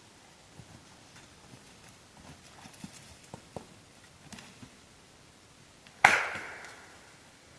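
A single hard wood knock, a stick struck against a tree trunk, about six seconds in, with an echo that rings out for about a second after it. A few faint clicks and snaps come before it.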